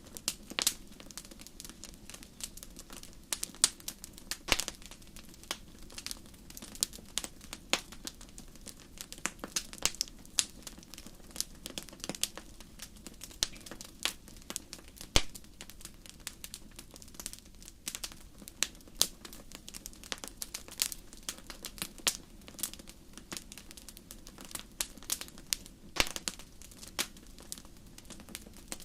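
Wood fire burning in a fireplace: irregular crackles and sharp pops over a low steady rush of flame.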